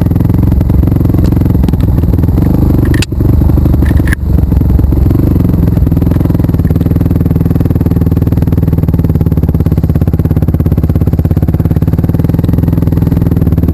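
Engine running steadily and close, loud throughout, with two short breaks about three and four seconds in.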